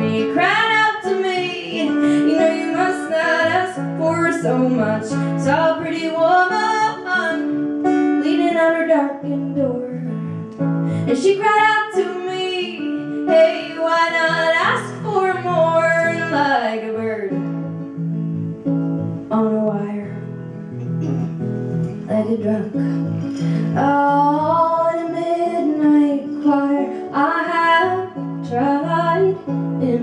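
A woman singing with her own acoustic guitar accompaniment, the voice rising and falling over steady, repeating chords.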